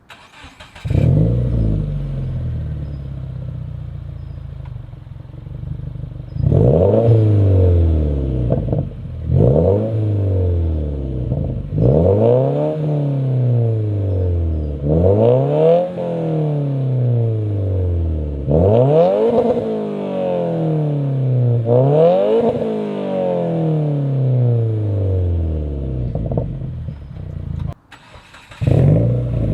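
Subaru WRX's turbocharged flat-four with an aftermarket exhaust, revved repeatedly from idle: about six quick rises in pitch, each falling back to idle, with a brief break near the end.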